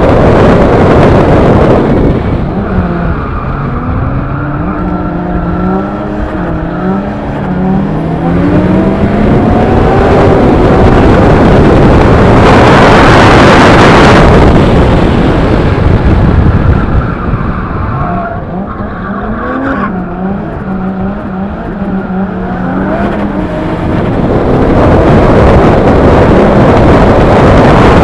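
Onboard sound of a Nissan Silvia S15's swapped-in 2JZ straight-six with a T78 turbo, its revs rising and falling repeatedly as the throttle is worked through drifts. Loud rushing noise from wind and tyres swamps the engine at the start, for a couple of seconds in the middle and near the end.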